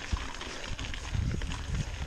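Mountain bike rolling over rough singletrack: tyres on dirt and stones, with irregular knocks and rattles as the bike bumps over the trail.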